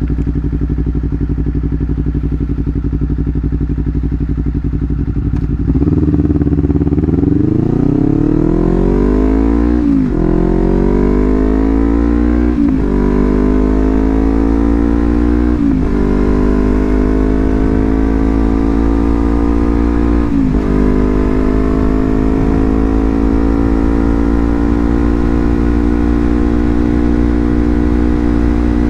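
Honda CBR250RR with a Leovince GP Corsa full-system exhaust, at first running at a steady note. About six seconds in it gets louder and accelerates through the gears, the pitch climbing in each gear and dropping at four upshifts. It then holds a steady cruising note at part throttle.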